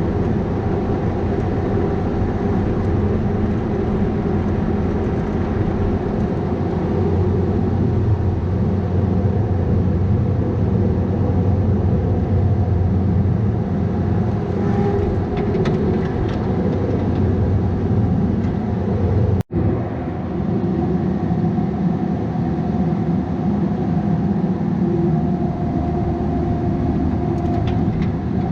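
Diesel engine of a Bobcat 337G mini excavator running steadily, a loud continuous drone. It cuts out for an instant about two-thirds of the way through.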